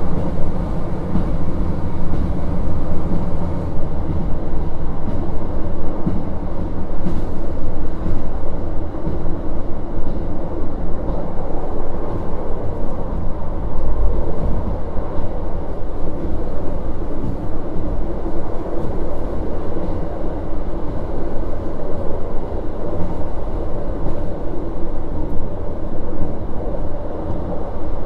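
Running sound heard inside a KiHa 40 1700-series diesel railcar underway: a steady diesel engine drone over wheel and rail noise, with a few brief clicks.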